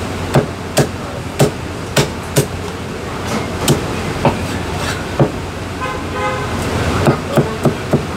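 Heavy cleaver chopping roast meat on a thick wooden chopping block: sharp chops about twice a second, a pause in the middle, then a quicker run of chops near the end. A horn honks briefly about six seconds in.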